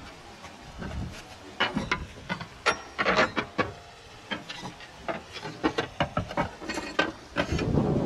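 Broken clay roof tiles being knocked and pried loose and pulled out: irregular sharp clinks and knocks of fired clay with some scraping, a few in quick clusters.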